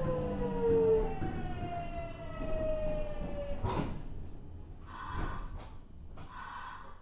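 VVVF inverter and traction motors of a Nagoya Municipal Subway 3050 series train whining under braking: several tones fall steadily in pitch and cut out just under four seconds in as the train slows for a stop. A few short hisses follow, about a second apart.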